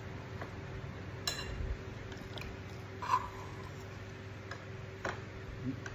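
Eating at the table: three sharp clicks and clinks of a metal spoon on a wok and plate, about two seconds apart, the first ringing briefly, with small mouth sounds of eating. A steady low hum runs under them.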